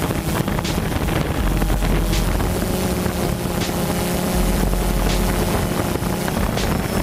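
Mark VI patrol boats' diesel engines running steadily at speed on the water, a constant engine drone under rushing wind noise on the microphone.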